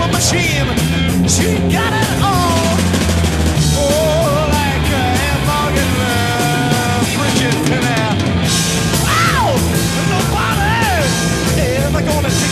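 Rock song with singing and a driving drum beat.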